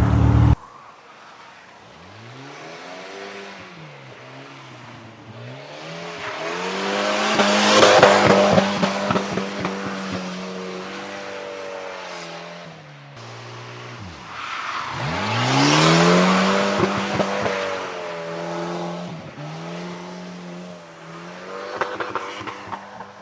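Volvo drift car's engine revving hard and holding high revs as it drifts past on a wet road, with tyre squeal and noise. The engine note climbs, holds and drops again, swelling loudest twice, about a third and two thirds of the way through, with a smaller third pass near the end.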